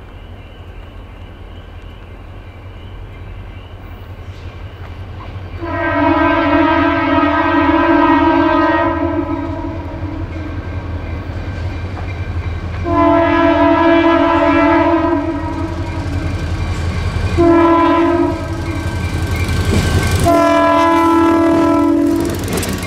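Freight train's lead diesel locomotive sounding a Nathan M3 three-chime air horn in the grade-crossing pattern: two long blasts, a short one and a long one. The horn is badly in need of re-voicing. Under it the locomotives' diesel engines rumble as they approach, and near the end they pass and the freight cars roll by.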